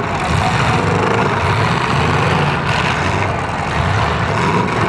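Demolition derby cars' engines running loud and steady in the arena, with no sharp crash of metal.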